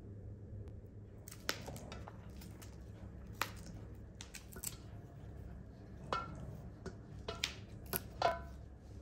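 Sharp snaps and clicks, irregular and a second or more apart, from fresh broad bean pods being split open by hand and shelled into a bowl. A few of the clicks carry a brief ring.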